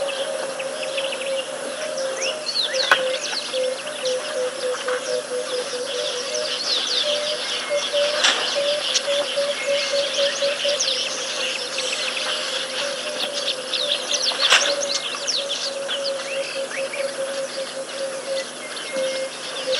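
A chorus of wild birds chirping and whistling, with many quick calls overlapping, over a continuous low trilling note. Two sharp clicks stand out, about three seconds in and again near fifteen seconds.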